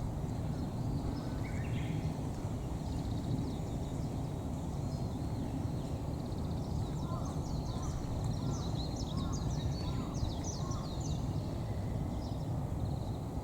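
Birds chirping and calling over a steady low outdoor rumble. The chirping is busiest a little past the middle.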